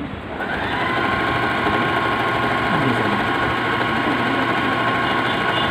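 Usha Janome Wonder Stitch Plus electric sewing machine running steadily as it sews a pattern stitch at a very short stitch length of 1, with a steady motor whine. It starts just after the beginning.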